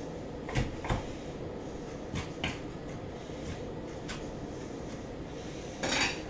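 Kitchen knife tapping on a cutting board while chopping green onions: a few sharp, separate knocks, then a louder, longer brushing noise near the end.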